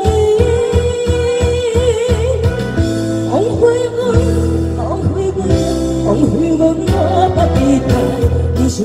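A singer holding notes with vibrato over a karaoke backing track with a steady bass line.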